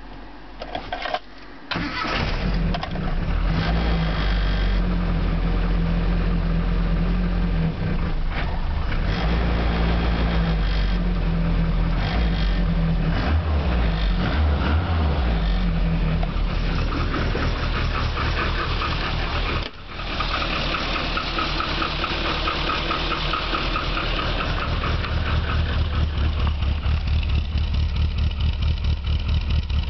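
Freshly rebuilt 1275cc Mini Cooper A-series engine with an RC40 exhaust starting about two seconds in and then running. It is not yet set up well, so the running is off-tune. Near the end, evenly spaced exhaust pulses are heard close to the tailpipe.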